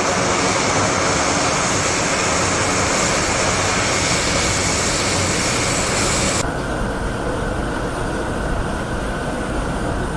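Airbus A400M's four turboprop engines and eight-bladed propellers running steadily as the aircraft taxis, a loud, dense engine-and-propeller noise. About six seconds in it cuts suddenly to a quieter, duller rumble, with the high hiss gone.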